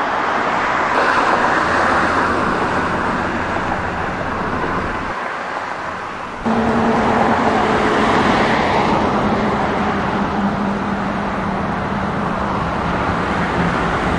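Road traffic: cars passing close by with a steady rush of tyre and engine noise that swells and fades. About six seconds in the sound jumps to a louder stretch, with a steady low hum under the traffic.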